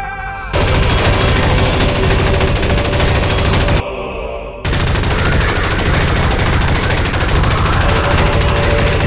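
Loud, continuous rapid gunfire, a dense crackle of shots with no gaps, cutting out for under a second about four seconds in and then resuming. A short bit of music ends about half a second in.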